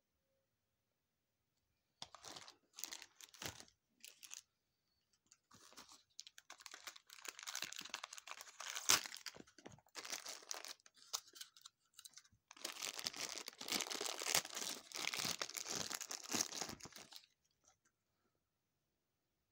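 Thin clear plastic packaging crinkling and rustling as hands work it, in three stretches of handling with short pauses between.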